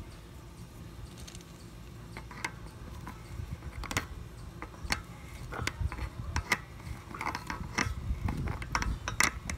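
Irregular clicks, knocks and rattles of hose reel parts being handled by hand, more frequent in the second half.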